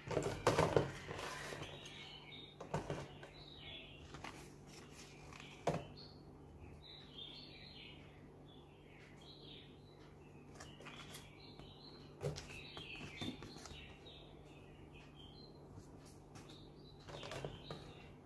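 Clear plastic blister packaging crinkling as it is handled, then a few light taps as the mask and snorkel set is unpacked. Birds chirp throughout over a steady low hum.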